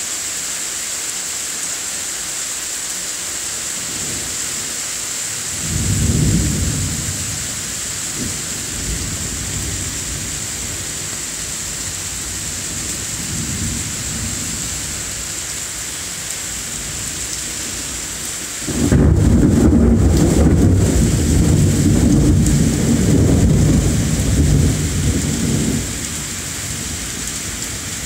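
Steady rain hissing throughout, with thunder rumbling over it: a rumble about six seconds in, fainter rumbling around the middle, then a long, loud roll of thunder starting about two-thirds through and lasting some seven seconds before dying away.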